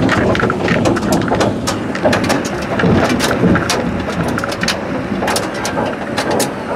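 Vehicle cabin noise: a steady rumble with many sharp rattles and knocks throughout, as from a vehicle driving over rough ground.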